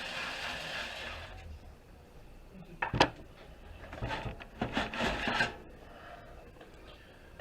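DVD drive being slid and pulled out of a desktop computer's metal drive bay: a scraping rub for about the first second, a sharp knock about three seconds in, then more scraping and clatter as it comes free.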